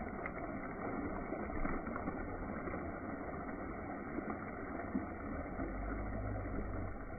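Water churning and splashing continuously as a giant hooked white sturgeon thrashes at the surface, over a steady low rumble that grows a little stronger near the end.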